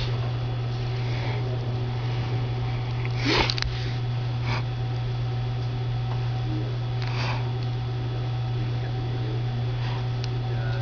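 Reflow oven running with its heating elements switched on, giving a steady low electrical hum. A brief breathy sniff comes about three seconds in.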